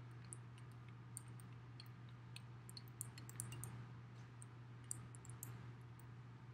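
Faint, irregular ticking and crackling of a small paint roller rolling through tacky paint on roofing tar paper, over a steady low hum.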